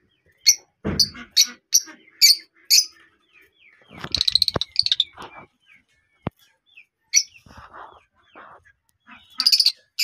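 Lovebirds chirping: a run of sharp, high chirps about twice a second, a busy burst of chatter about four seconds in, and more chirps near the end. A short low thump comes about a second in.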